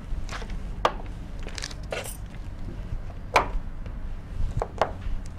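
Scattered light clicks and taps of a paper chart being handled and pressed against a whiteboard, over a low steady hum.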